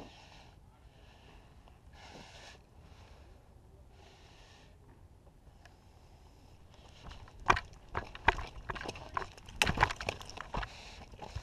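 A person breathing hard through the nose, a breath about every two seconds. From about seven seconds in comes a run of loud, irregular scuffs and knocks: footsteps and gear on gravel and dirt as the player moves off.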